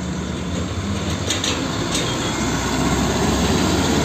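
Hino Dutro fuel tanker truck's diesel engine running as it drives past, with tyre and road noise. It gets a little louder toward the end as the truck comes alongside.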